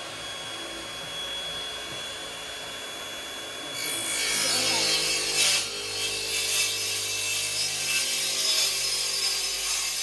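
A Makita cordless circular saw runs with a steady whine, then about four seconds in bites into the wood and gets louder and rougher, cutting a small groove into the end of a wooden false beam.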